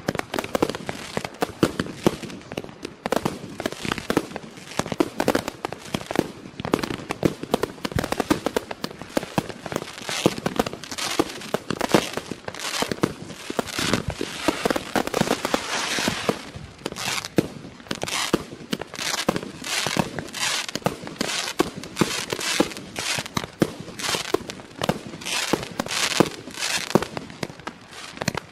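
Klasek C2003BP/C 'Best Price' 200-shot, 30 mm firework cake firing in rapid succession. There is a continuous stream of launch thumps and bursts, several a second, with crackling from glittering star effects.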